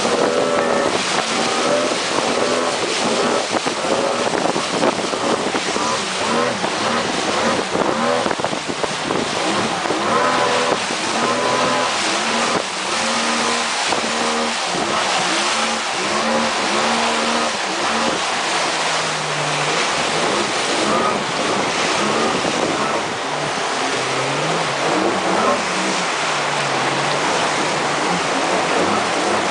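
Outboard motor of a river canoe running at speed, with spray off the hull and the rush of rapids around it, and wind on the microphone.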